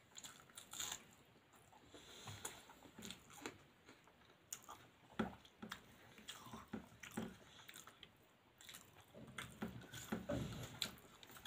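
Close-up eating by hand: irregular chewing and small mouth clicks from someone eating rice with fried vegetables, with soft squishing of fingers mixing rice on a steel plate near the end.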